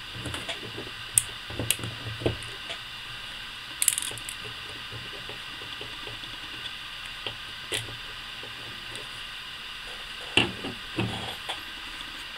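Handling noise from the plastic side covers and small parts of a Daisy Powerline 880 air rifle being fitted together: scattered light clicks and taps over a steady hiss, with a few louder knocks of plastic on the table about ten seconds in.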